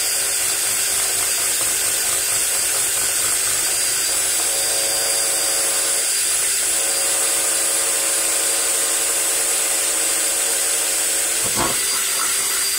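Electric drill running steadily, its bit cutting a hole through stacked vertical-blind slats held under a metal guide plate and worked side to side. There is a short knock near the end.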